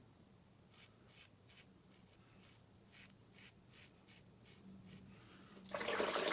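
Razor strokes scraping through lathered stubble on the first pass with the grain: a run of short, faint scratchy strokes, about two a second. Near the end a loud rush of running water cuts in.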